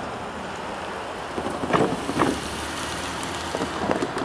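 Steady outdoor background noise with wind on the microphone, broken by a few short gusty bursts, two about halfway through and two more near the end.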